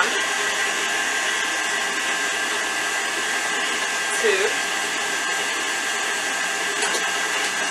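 KitchenAid stand mixer running steadily, its motor giving a constant whir with a high whine as it beats a creamed butter, sugar and flour batter while eggs are added.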